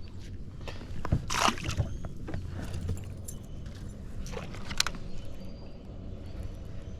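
Light knocks and metallic rattles of fishing gear being handled in a boat, in two short clusters, over a low steady rumble.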